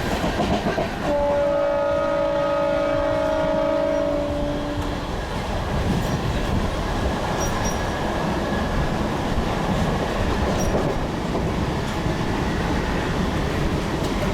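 Train running on the rails with a steady rumble. Its horn sounds one held note for about four seconds, starting about a second in.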